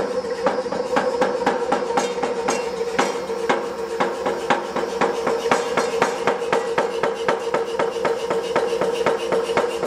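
Background music with a steady percussive beat over a held drone.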